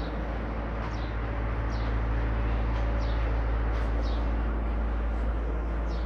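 A steady low hum over a noisy background, with short, high chirps of a small bird, each falling in pitch, about once a second.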